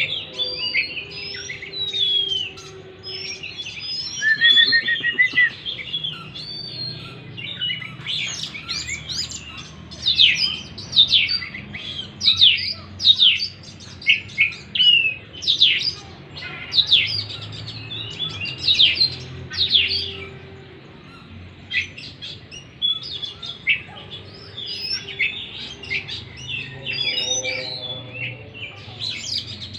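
Oriental magpie-robin (kacer) singing a loud, varied song of whistles and fast, sharp down-slurred notes, busiest in the middle, with a lower-pitched call near the end.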